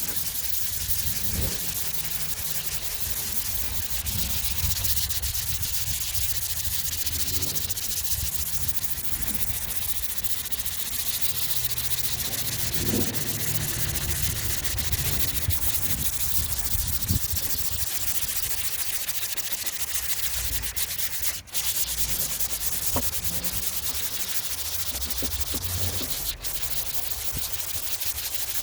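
Steady sanding of a primed car hood, the abrasive hissing continuously over the primer, with one short break about three quarters of the way through.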